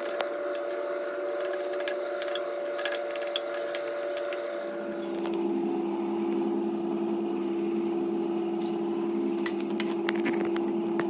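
Induction cooktop humming steadily under a pan of simmering water. Its tone drops to a lower hum about halfway through. Light clicks of metal forks against the pan come as the noodle block is pulled apart.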